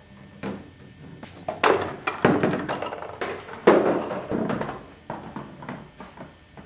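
Foam-core ball-tossing machine clattering as it runs: a series of knocks and taps, with two louder thumps about a second and a half and about three and a half seconds in.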